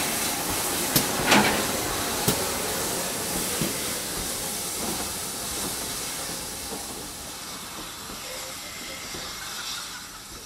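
GWR steam tank locomotives hissing steam as they haul a train of coaches out, with a few sharp clanks in the first couple of seconds; the sound fades steadily as the train draws away.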